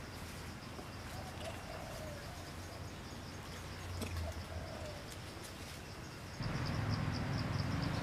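Forest ambience: a few soft, wavering calls over a steady, rapid, high-pitched pulsing chirp. About six and a half seconds in, the background suddenly becomes louder and noisier.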